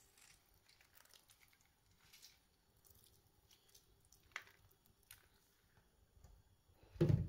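Faint scattered clicks and soft squishy handling noises, with a single sharper click partway through and a dull thump near the end.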